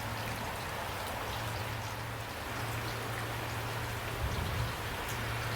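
Steady rain falling, with an even hiss and scattered individual drops, over a low steady hum.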